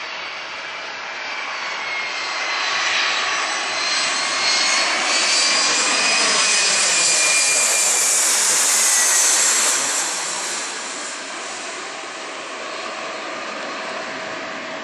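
Jet airliner passing low overhead: the engine noise swells over a few seconds and fades again after about ten seconds, with a high fan whine that drops slightly in pitch as the plane goes by.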